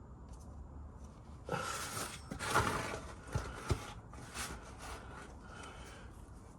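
Hand-tool work on the motorcycle's oil drain plugs: about three seconds of scraping and rustling, with two sharp clicks in the middle.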